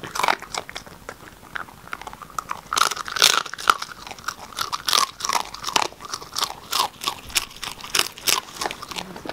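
Miniature dachshund crunching and chewing a crunchy dog treat: a quick, irregular run of crunches that gets thicker from about three seconds in.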